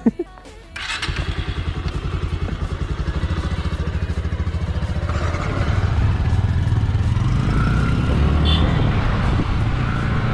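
Yamaha motorcycle engine running under way, with wind noise across the microphone. It starts suddenly just under a second in and gets louder over the next few seconds as the bike picks up speed.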